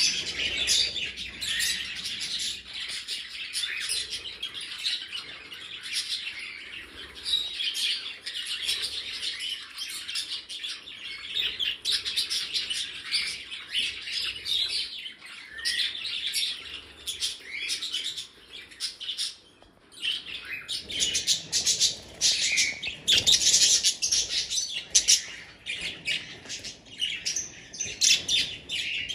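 A flock of budgerigars chattering and warbling, with many short overlapping chirps. The chatter thins out briefly about two-thirds of the way through, then picks up again.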